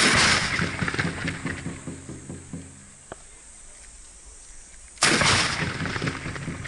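Black-powder matchlock guns firing: a volley goes off at the start and rumbles away over a couple of seconds, then a single close shot about five seconds in.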